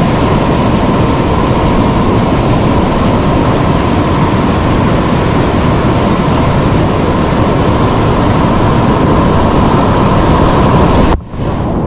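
Loud, steady rush of whitewater rapids, cut off suddenly about eleven seconds in and replaced by a duller rush.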